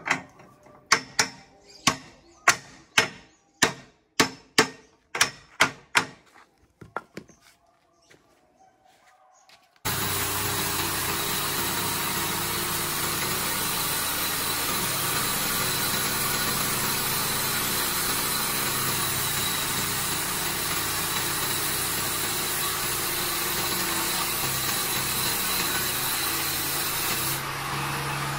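About a dozen sharp knocks, roughly two a second, then a short pause. Then a home-built horizontal sawmill starts abruptly and runs steadily with a low hum under a loud, even noise.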